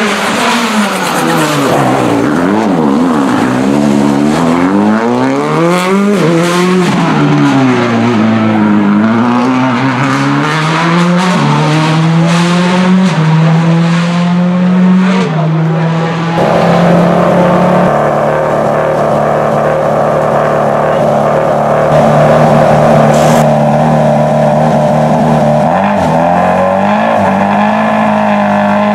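Subaru Impreza WRC S14's turbocharged flat-four engine passing at speed on a rally stage: the pitch drops and rises as it brakes and accelerates, then climbs in short steps through several upshifts as it drives away. After a sudden cut about two-thirds of the way in, the same engine runs stationary at a steady pitch in test mode.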